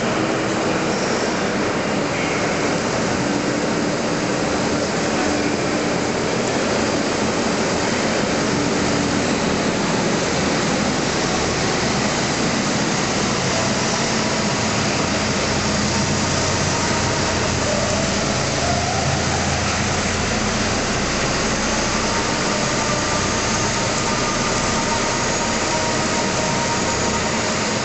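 Fendt tractor engine running as it tows a train of rubber-tyred coil trailers past. Its low rumble grows louder through the middle and then fades, over a steady, loud hiss of factory-hall noise.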